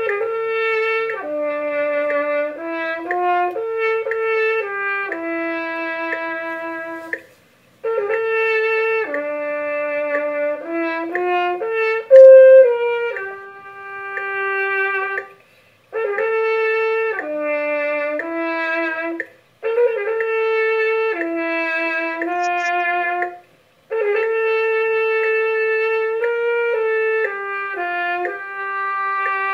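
Solo trumpet playing a slow melody in five phrases, with short breaks for breath between them and the loudest, highest note about twelve seconds in. It is heard from a home video recording played back over a video call. The player himself says he ends his notes too abruptly.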